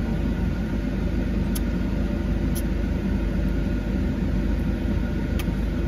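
Car idling, heard from inside the cabin: a steady low hum and rumble, with a few faint clicks.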